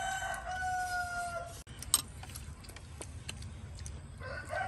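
A rooster crowing: one long held call that trails off about a second and a half in, and another crow starting near the end. Between them come a sharp click, the loudest moment, and a few small clicks.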